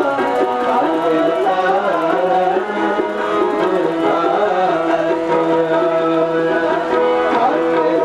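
Sikh devotional kirtan music: steady held notes over tabla, with singing.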